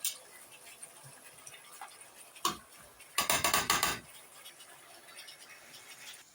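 Metal utensils and pots clinking: a single knock about two and a half seconds in, then a quick run of clinks lasting under a second.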